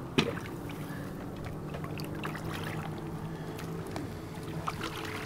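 Gear being handled on an inflatable pontoon boat in shallow water. There is one sharp knock just after the start and a few faint clicks later, over a steady low hum.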